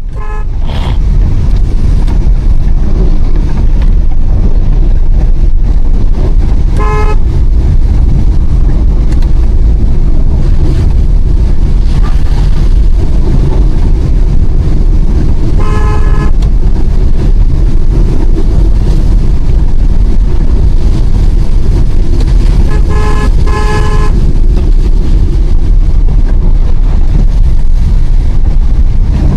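Steady, loud rumble of a Hyundai Eon driving in heavy rain, with short car-horn beeps sounding five times, the last two close together.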